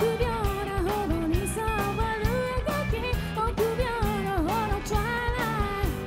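Live rock band playing: a woman sings a melody over electric guitar, bass guitar and a regular drum beat.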